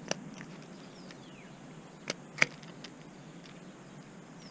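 A few sharp metallic clicks and taps from a small screwdriver working a steel circlip onto the shaft of the nylon clutch cog in a Bafang mid-drive motor, pushing it to click into its groove. The loudest click comes about two and a half seconds in.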